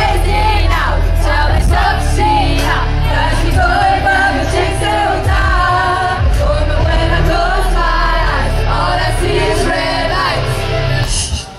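Women singing into microphones over a pop backing track with a heavy, steady bass beat. The sound drops away sharply near the end.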